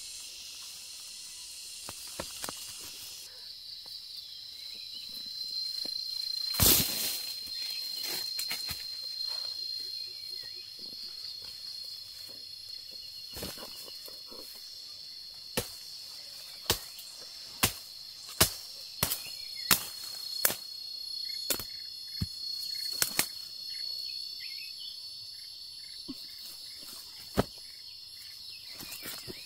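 Insects chirring in a steady high pitch, with scattered sharp knocks: one loud knock about a quarter of the way in, a run of them about once a second through the middle, and one more near the end.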